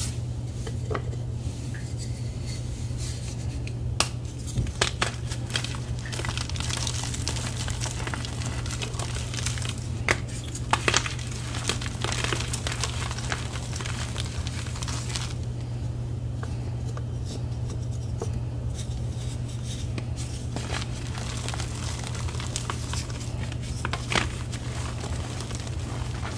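Reformed gym chalk blocks crushed by hand: crisp snapping and crunching as blocks break, with sharp cracks about four seconds in and around ten to eleven seconds, and softer crumbling and squeezing of powder in between. A steady low hum runs underneath.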